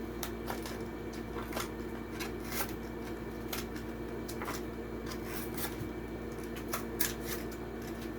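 Plastic blister pack and cardboard backing of a die-cast toy car being pried and torn open, giving scattered crinkles and sharp clicks, over a steady low hum.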